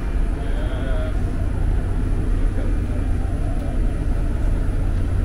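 Steady low rumble of trains standing at a station platform, even throughout.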